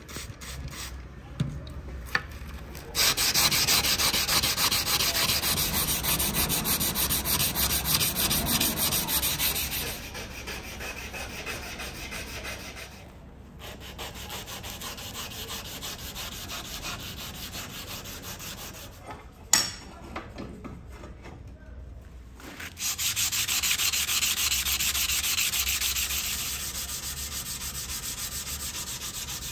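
Hand wet-sanding of a steel knife blade: abrasive paper rubbed in quick back-and-forth strokes over the wet steel. The strokes come in two loud spells with lighter, quieter rubbing between, and there is a single sharp knock about two-thirds of the way through.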